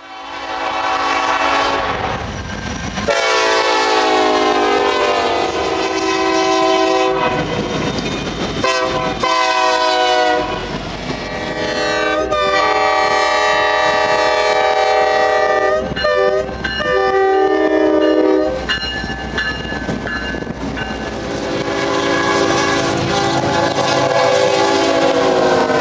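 Diesel freight locomotive air horns sounding a series of long chord blasts, one after another, with the chord changing several times and some blasts sliding slightly down in pitch as the locomotive passes. Rumble and clatter of the passing train lies underneath.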